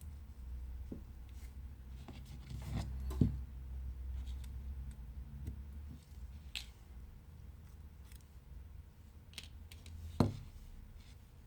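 Small clicks, taps and scrapes of repair tools and phone parts being handled on a bench over a low steady hum, with a sharper knock about three seconds in and another near the end.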